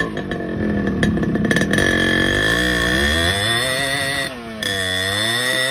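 Motorcycle engine running and being revved, its pitch dipping and rising a few times, with a steady high-pitched whine over it. The sound cuts off suddenly at the end.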